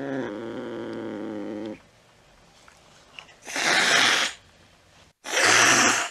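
Domestic cat giving a low, drawn-out yowl that ends just under two seconds in, then hissing loudly twice, each hiss under a second long.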